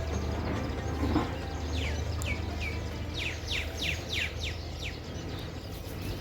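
A bird calling a run of short, down-slurred notes, from about two seconds in until about five seconds in, over a steady low rumble.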